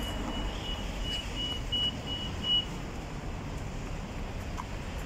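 Steady street traffic rumble with a high electronic beeper sounding short beeps about three times a second, which stop about two and a half seconds in.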